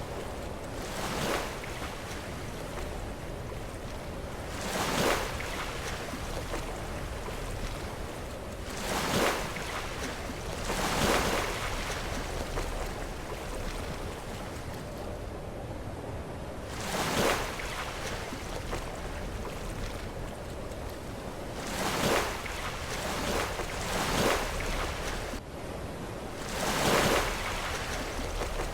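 Sea waves crashing against rocks: a steady wash of surf with a louder surge every few seconds, about eight in all.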